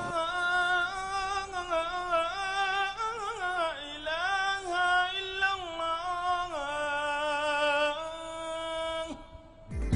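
A solo voice singing a slow, ornamented melody unaccompanied, sliding between long held notes; it fades away near the end.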